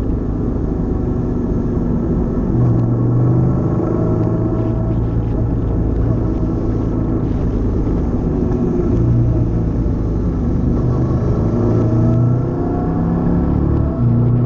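Honda CTX700 motorcycle's parallel-twin engine running at cruising revs while riding, its note swelling and easing several times with the throttle, over a low rumble of wind and road.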